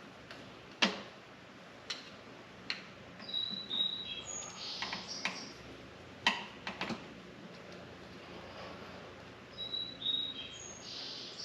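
Small birds chirping in short high calls, mixed with about six sharp clicks and knocks, the loudest about a second in and about six seconds in, from handling a pod filter and its hose clamp on a motorcycle carburetor.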